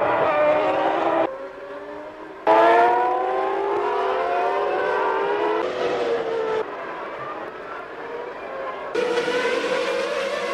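1995 Formula One car engines running at high revs, their pitch climbing as the cars accelerate, with the sound jumping abruptly in level several times as it cuts from one car or shot to another.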